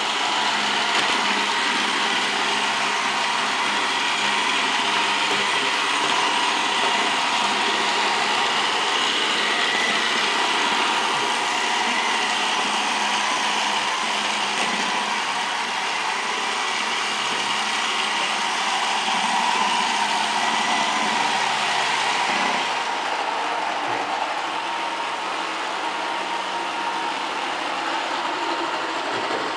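Robot vacuum cleaner running steadily: a constant motor whine over a hiss. It turns slightly duller and quieter about three-quarters of the way through.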